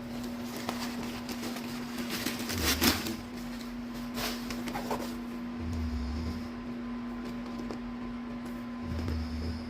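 Handling sounds: scattered light clicks and rustles with a few soft thumps, over a steady low hum.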